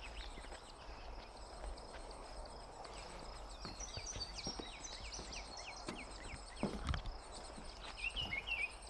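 Songbirds singing: a quick run of high falling chirps in the middle and a short warbled phrase near the end, over a faint steady high trill. Scattered low clicks and thumps, with a louder thump about seven seconds in.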